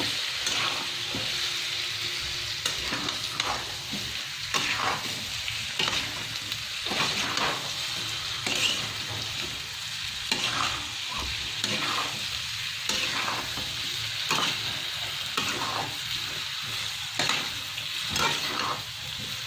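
Chopped raw mango and spices frying in a pan while being stirred: a steady sizzle with repeated scraping strokes about once a second.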